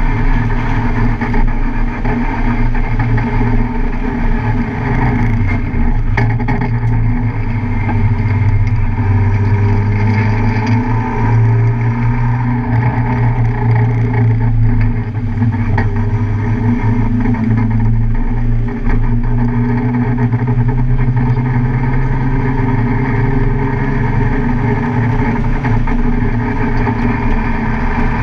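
Car engine running hard at a steady speed, its pitch shifting a little with throttle and gear, over tyre and wind noise on a race track.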